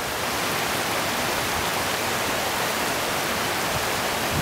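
Steady rush of flowing water in a small mountain stream.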